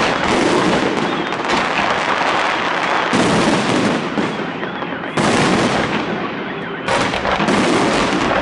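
Fireworks display: many aerial shells bursting and crackling at once in a dense, continuous barrage, with fresh loud volleys breaking in every one to two seconds.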